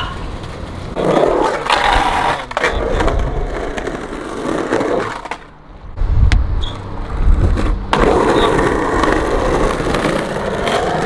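Skateboard wheels rolling, with a brief lull about halfway through, then a sharp clack and heavier rolling.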